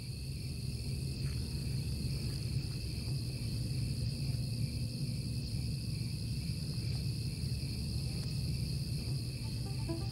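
Steady chorus of night insects, crickets, chirping continuously with a low rumble underneath.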